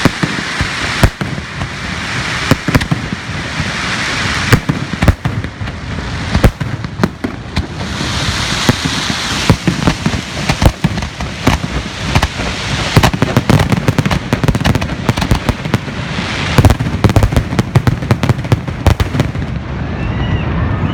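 Aerial fireworks going off: a rapid string of sharp bangs over crackling bursts, growing denser near the end before they stop about a second before the end.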